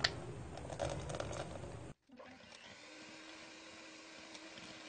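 Electric hand mixer running, its beaters whisking cake batter in a bowl. About two seconds in the sound cuts off abruptly, then resumes as a quieter, steady motor hum with a single low tone.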